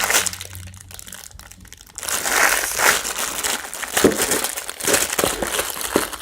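Packaging crinkling and rustling as a Pusheen stress ball is handled and unwrapped. There is a burst at the start, a quieter spell, then busier crinkling with small sharp clicks from about two seconds in.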